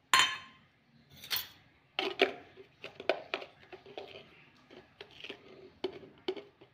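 Stainless steel kitchenware clinking: a sharp ringing clink at the start, another about a second later, then an irregular run of light clinks and taps, as of a spoon against steel containers.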